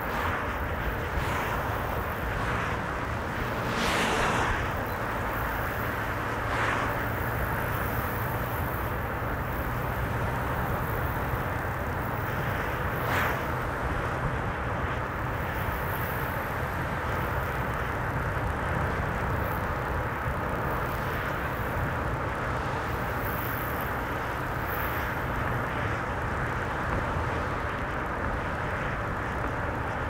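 A car driving at steady speed on the highway: continuous tyre and engine noise with a low, steady hum. There are brief louder swells about four seconds in and again near thirteen seconds.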